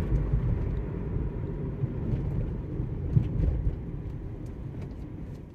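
Cabin road and engine noise of a 2003 Toyota Celica GT-S on the move: a low steady rumble with a light knock about three seconds in, fading over the last couple of seconds.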